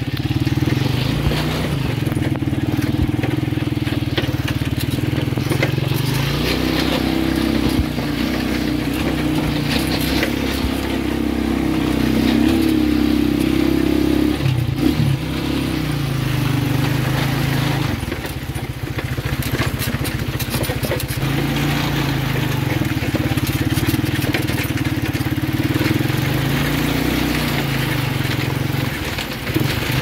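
Motorcycle engine of a sidecar tricycle running under way, its note rising and falling with the throttle, with knocks and rattles as it rides a rough dirt track.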